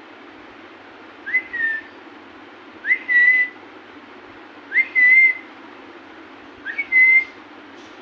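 Four short clear whistles about two seconds apart, each sliding quickly up and then held on one high note for about half a second.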